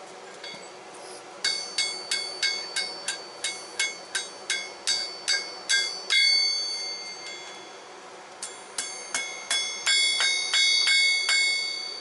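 Hand hammer striking red-hot file steel on an anvil's horn, each blow making the anvil ring with a bell-like tone. The blows come about two to three a second in two runs, with a pause of about two seconds between them.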